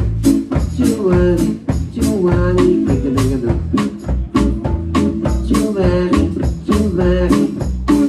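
Live band playing right beside the drum kit: cymbals and drums keep a steady beat over a low bass line, with melodic phrases rising and falling on top.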